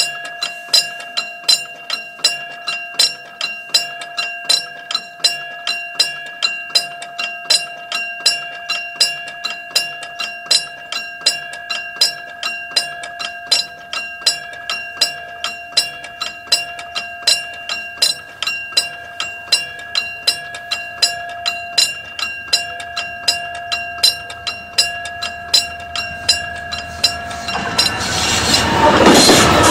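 Railroad level-crossing warning bell ringing in an even rhythm of about two strikes a second, each strike on the same steady tones. Near the end a train reaches the crossing and passes, its rumble quickly growing loud enough to swamp the bell.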